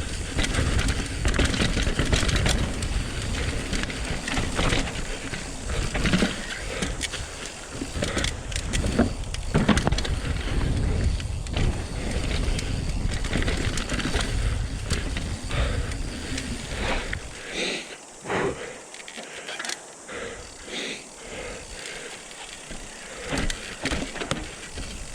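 Scott Genius mountain bike riding down a dirt trail, heard from a mic on the rear wheel: tyre noise over the ground with constant rattles, clicks and knocks from the bike, sounding "so terrible". About two-thirds through, the low rumble falls away and single clicks and rattles stand out.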